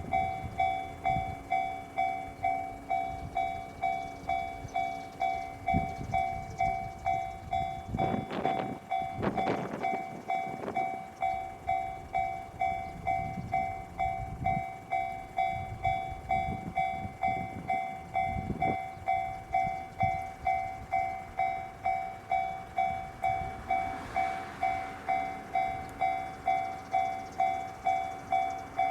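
Japanese level-crossing warning bell ringing steadily at about one and a half strokes a second while a JR Mito Line electric train runs through the crossing. There are bursts of wheel-on-rail noise about eight to eleven seconds in, and train noise swells again near the end.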